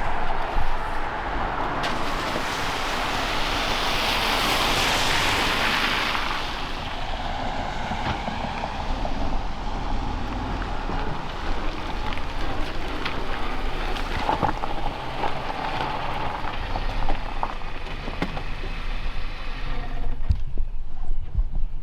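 Road traffic on a wet road: a vehicle hisses past about four to six seconds in, over a steady low rumble.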